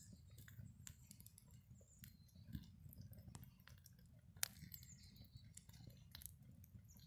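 Faint crackling of a small fire burning cardboard: irregular sharp snaps and pops, with one louder snap about four and a half seconds in, over a low steady rumble.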